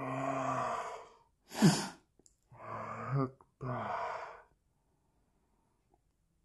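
A woman sneezing once: a drawn-out voiced "haaa" build-up, then a sharp, loud "choo" about a second and a half in, followed by two shorter voiced exhalations.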